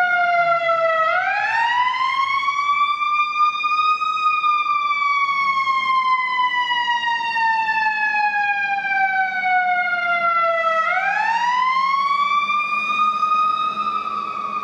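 Loud emergency vehicle siren wailing slowly: the pitch climbs about a second in, sinks slowly for about seven seconds, then climbs again near the end.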